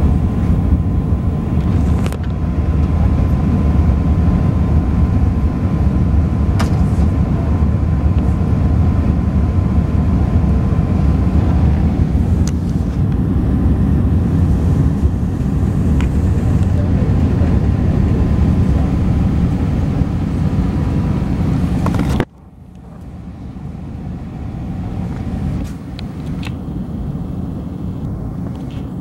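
Cabin noise of an Airbus A380 with Rolls-Royce Trent 970 engines on its landing roll: a loud low rumble with a steady thin whine and a few light knocks. About 22 seconds in the noise drops abruptly to a much quieter hum that swells for a few seconds, then holds steady.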